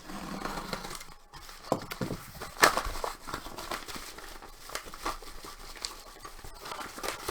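A sealed package being opened by hand: its packaging crinkles, rustles and tears in irregular bursts, with scattered clicks and one sharp snap about two and a half seconds in.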